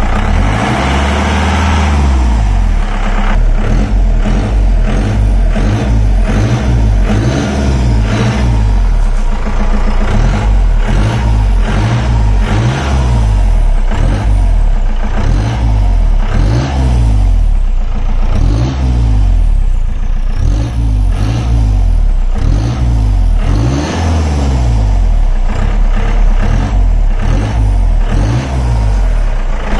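Turbocharged jeep engine with a small muffler, stationary and revved over and over with the throttle: one longer rise at the start, then quick blips about once a second or so, each rising and falling back toward idle.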